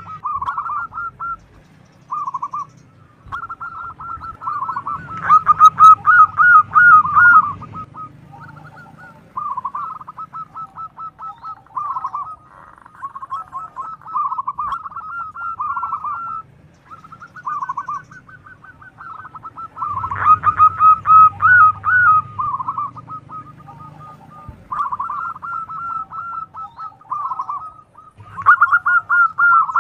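Zebra dove (perkutut) calling: fast stuttering trills of cooing notes in phrases of one to three seconds, repeated with short gaps. The calls are loudest about five seconds in and again around twenty seconds in.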